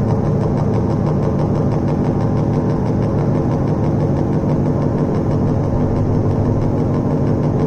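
Loud, steady low electronic drone with a fast throbbing pulse, played live on a portable rig of electronic music gear.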